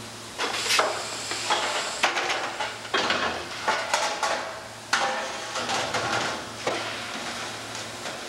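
Irregular metal clanks and scrapes of steel fender channel against a rotary compression bending machine as parts are loaded and bent, over the machine's steady low hum.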